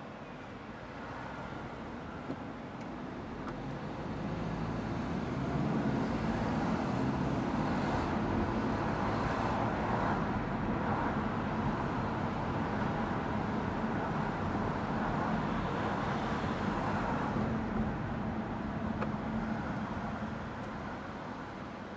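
Road and tyre noise of a car driving on city streets. It swells as the car pulls away about four seconds in, runs steadily, then eases as the car slows near the end.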